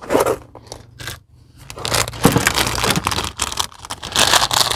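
Plastic being handled, crinkling and rustling: a few light clicks about the first second, then continuous rustling that grows louder near the end.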